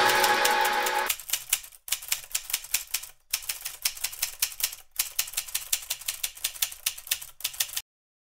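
Typewriter keys clacking in quick runs of several strikes a second, with brief pauses between runs, stopping abruptly near the end. The tail of electronic music fades out in the first second.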